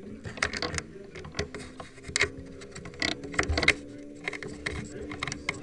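Irregular clicks and knocks, about a dozen scattered unevenly, over a faint steady hum.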